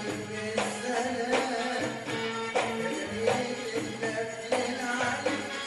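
Egyptian folk band music: goblet drum and tambourine strokes on a steady pulse of about one every 0.7 seconds, under a sustained keyboard melody.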